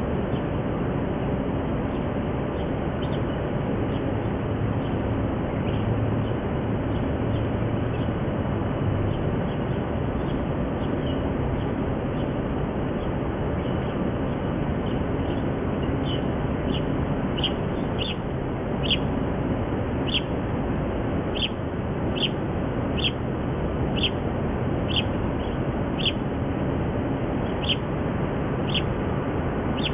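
Mallard ducklings peeping: short high peeps, a few scattered early and then a steady run of about one a second through the second half, over a constant background hiss.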